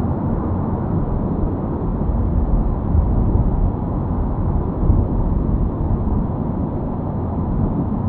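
Deep, steady, muffled rumble of a Boeing 737-800's CFM56-7B jet engines on a landing flare, played back slowed down with the slow-motion picture, so it has no high end.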